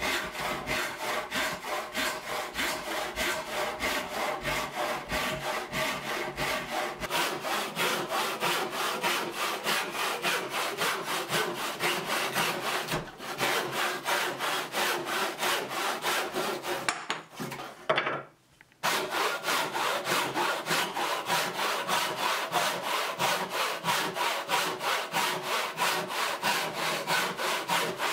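Hand saw cutting wooden timber in quick, even back-and-forth strokes, each stroke a rasping scrape. The sawing breaks off briefly about eighteen seconds in, then carries on at the same pace.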